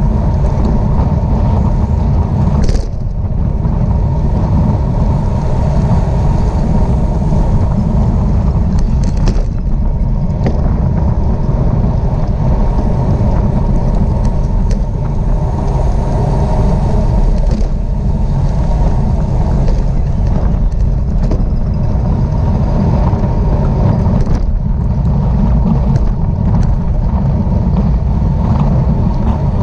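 Wind buffeting a camera microphone carried at racing speed on a bicycle: a loud, steady rumble with a few faint ticks.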